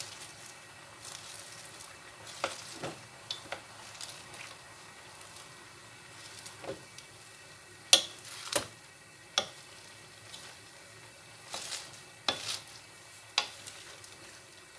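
Vegetables sizzling in a metal pan while being tossed with two wooden spatulas, which knock and scrape against the pan at irregular intervals over a faint steady hiss. The loudest knocks come about eight seconds in.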